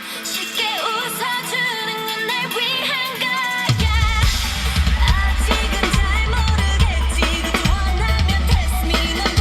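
Pop song with a sung melody played through a car audio system for a sound test; about a third of the way through, drums and heavy deep bass come in.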